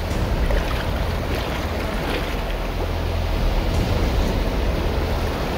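Shallow surf foaming and washing around the wader's legs, with wind on the microphone adding a steady low rumble.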